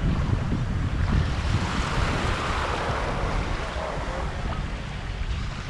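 Wind buffeting the microphone over the wash of shallow sea water, with the surf swelling up about two seconds in.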